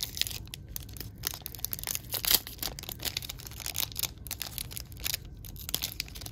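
Foil wrapper of a trading-card pack crinkling and crackling as fingers work at it and tear it open: a string of short, irregular crackles, the sharpest a little over two seconds in.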